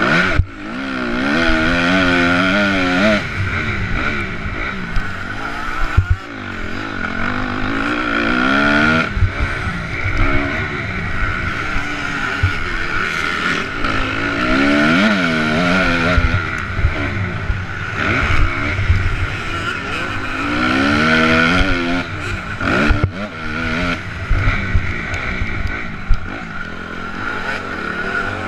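A Honda MX2 motocross bike's engine revving hard and backing off again and again, its pitch climbing and dropping every few seconds, heard from the rider's helmet camera with a steady rush of wind and knocks from the bumps.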